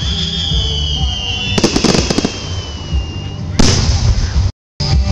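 Fireworks display: a long whistle that falls slowly for about three seconds, a crackling burst near the middle, and a loud bang about three and a half seconds in, over a steady low rumble. The sound cuts out for a moment near the end.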